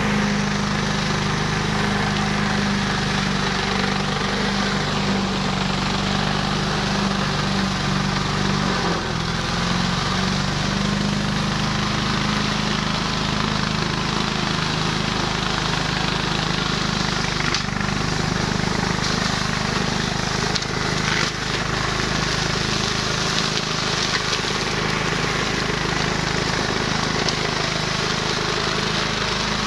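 Engine of a 1-metre flail-shaft grass cutter running steadily, with a brief dip in engine speed about nine seconds in.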